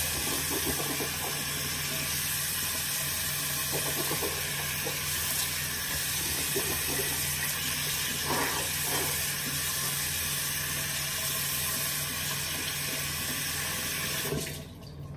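Bathroom sink tap running steadily, shut off near the end.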